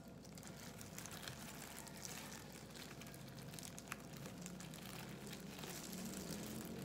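Faint crinkling of thin disposable plastic food-prep gloves, with scattered light clicks as kimbap slices are handled and set into a plastic takeaway container.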